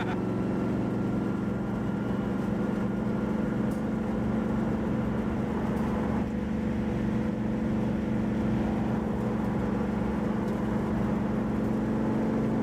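Car engine running at a steady cruise with tyre and road noise, heard from inside the cabin; the pitch holds level throughout.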